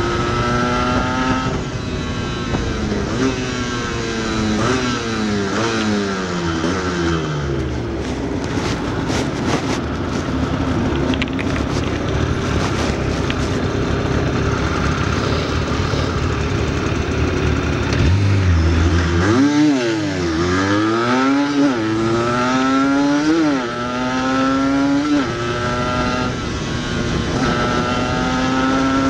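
Yamaha DT125X single-cylinder two-stroke engine with an Arrow exhaust, heard from on the bike while riding in traffic. The revs drop away early, hold steady for a while, then rise and fall several times through gear changes and throttle blips in the second half.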